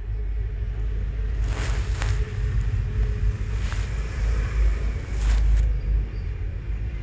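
Low steady rumble, with three short scraping sounds from a metal tool and fingers working on an opened smartphone's frame, about a second and a half in, near the middle, and a little past five seconds.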